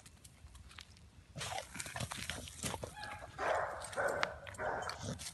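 A pit bull terrier making excited sounds up close, in a string of short noisy bursts that begins about a second and a half in and is loudest a little after three seconds.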